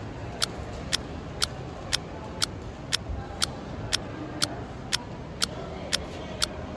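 Clock-style ticking, two sharp ticks a second in a perfectly even beat, over a steady low background rumble.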